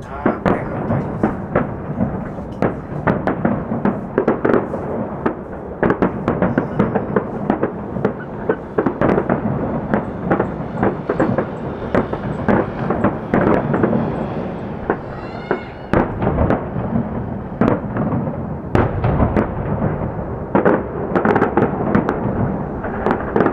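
Aerial fireworks shells bursting in rapid, irregular succession: several sharp bangs a second over a continuous low rumble of overlapping explosions.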